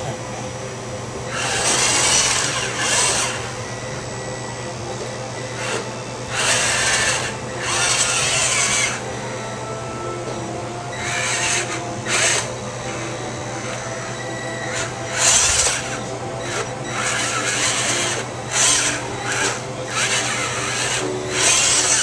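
Electric drive motors and gearboxes of a Bruder Caterpillar toy bulldozer converted to radio control, whirring in repeated short runs as it drives, over a steady low hum.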